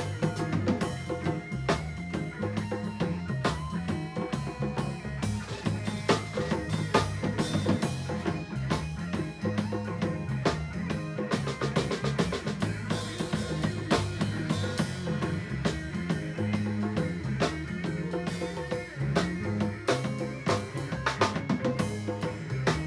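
A live band playing an instrumental groove: a drum kit with kick and snare/rimshot hits keeping a steady beat, over a moving bass line with electric guitar and keyboard.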